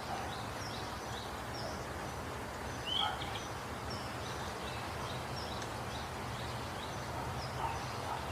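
Birds chirping: many short, high, falling chirps in quick succession, with one louder call about three seconds in, over a steady background hiss.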